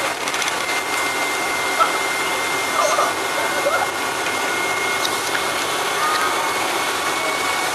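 Interior running noise of a moving bus heard from the seats over its rear engine: a steady drone of engine and road noise with a thin, steady high whine on top.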